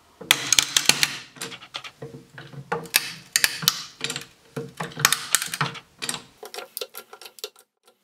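A miter-cut oak joint with a glued biscuit cracking and crackling in a rapid, irregular run of sharp clicks as a press pulls it apart and the wood splits along the grain, with a low steady hum beneath that stops about six seconds in.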